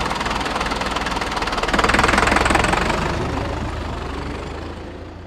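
Tractor engine sound effect: an engine running with a rapid knock. It swells to its loudest about two seconds in, then fades away.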